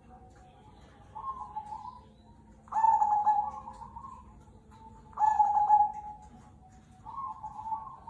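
Perkutut (zebra dove) of the Cemani Kolbuntet line cooing: four cooing phrases, the two in the middle louder than the first and last.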